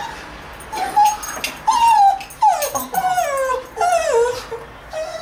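A dog whining with a toy held in its mouth: a string of about five or six high, falling whines, each under a second long.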